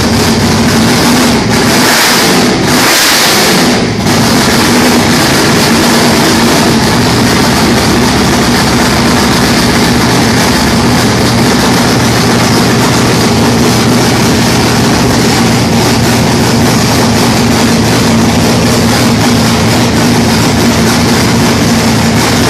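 Race-built Chevrolet Camaro V8 with two four-barrel carburetors, running loudly and steadily. It surges louder in two short spells about two and three seconds in, then settles back to a steady run.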